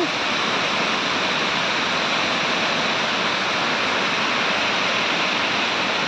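Wide waterfall pouring over a rock face: a steady, even rush of falling water.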